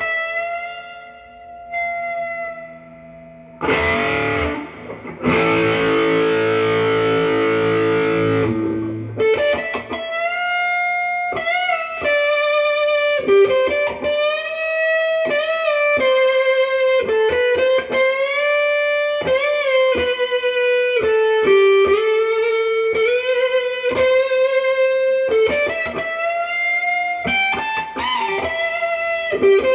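PRS McCarty 594 SE electric guitar playing: a few single notes, then a strummed chord left to ring for several seconds, then a lead line of single notes with several bends up and back down.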